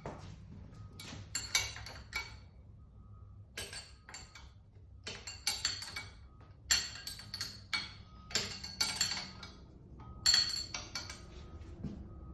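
Wrench clinking against steel bolts and plate while screws on a welding positioner's jaws are snugged up, in short bursts of metallic clinks every second or two.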